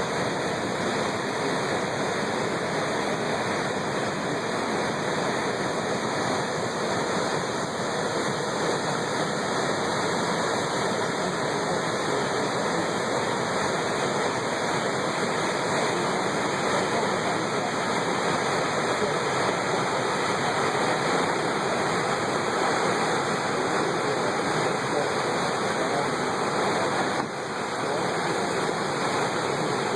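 Waterfall: a steady rush of falling water, even and unbroken, dipping briefly a few seconds before the end.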